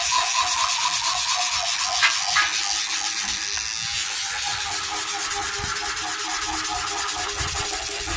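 An old toothbrush scrubbing the soapy, wet surface of a satellite dish: fast, continuous scratchy brushing strokes.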